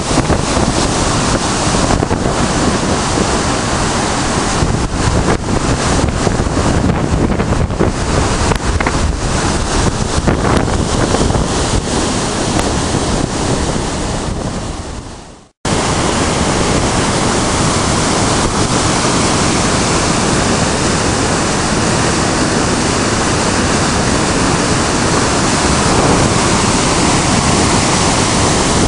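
Rain-swollen river rushing through a channel in brown whitewater: a loud, steady rush of water, with wind buffeting the microphone in the first half. The sound fades out and cuts off just past halfway, then the same rush resumes at once.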